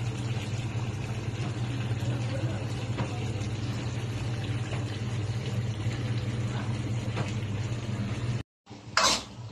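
Pork adobo simmering in its sauce in a metal wok, with faint bubbling and small pops under a steady low hum. Near the end the sound breaks off for a moment, then a brief loud noise follows.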